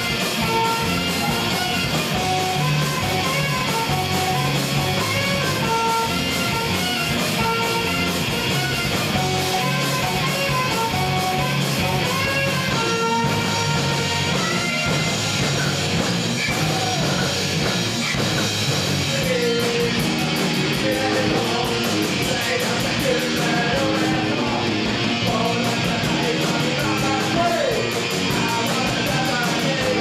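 A rock band playing live and loud, with electric guitar and a saxophone playing held notes and bends over it.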